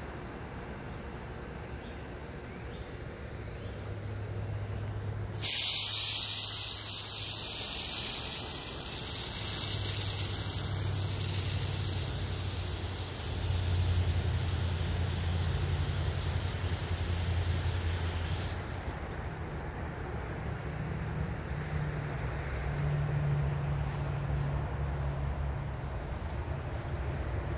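Water spraying from a garden hose nozzle: it comes on suddenly about five seconds in as a loud steady hiss and is shut off about eighteen seconds in.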